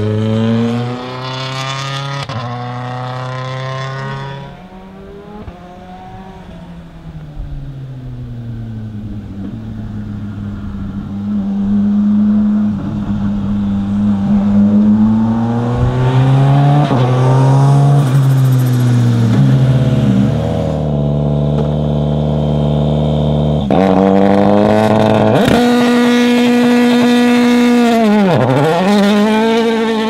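Toyota Yaris WRC rally car's turbocharged four-cylinder engine being driven hard, its pitch climbing through the revs and dropping sharply at each gear change. It fades to a distant drone for a while, then comes back loud, with a quick dip and rise in pitch near the end as the driver lifts and gets back on the throttle.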